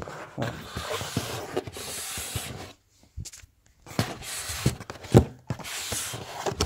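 Handling noise from the Blu-ray player being turned around on a tabletop: rubbing and scraping in two stretches, with a few light knocks, the loudest about five seconds in.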